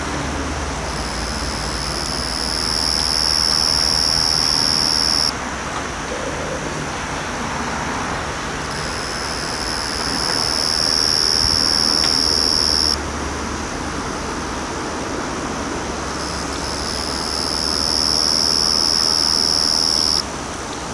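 Yachisuzu ground cricket (Pteronemobius ohmachii) singing: three long, steady, high-pitched calls of about four seconds each, each swelling louder and then stopping abruptly. A fainter, higher steady insect tone runs underneath, over a low background hum.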